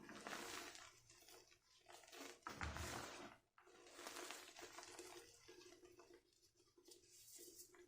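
Fresh gym chalk being crushed, giving a series of soft, irregular crunches and crumbles.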